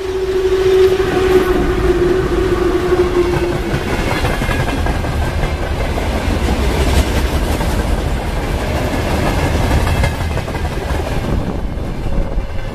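Soviet VL10U electric locomotive passing at speed at the head of a heavy freight train, with a steady whine from the locomotive for the first few seconds. Then the freight wagons roll past, with a continuous rumble and clatter of wheels on the rails.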